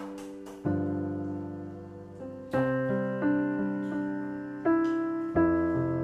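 Slow, gentle solo piano music: soft chords and single notes struck about every second or two, each ringing out and fading before the next.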